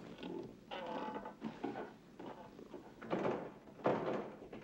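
Old tall window's latch and frame creaking and clunking as it is worked open, in a series of irregular short creaks.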